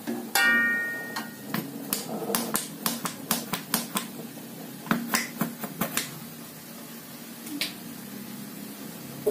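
Metal spatula striking and scraping an aluminium wok during stir-frying: one ringing clang about half a second in, then a run of quick knocks and scrapes for several seconds, easing off to a low steady background with a single tap near the end.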